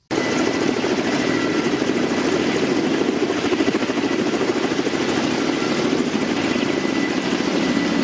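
Firefighting helicopter flying with its water bucket slung below, a steady rotor and engine noise.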